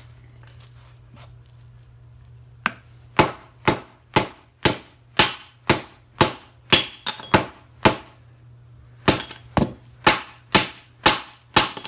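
Small hammer striking the welds on a heavy transformer's steel core in quick succession, about two sharp blows a second, to break the welds loose. The blows start about three seconds in, with a short pause in the middle.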